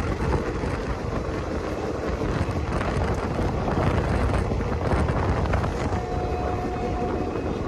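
Indian Railways passenger express train running, heard from on board: a steady rumble of wheels on the track mixed with wind noise on the microphone.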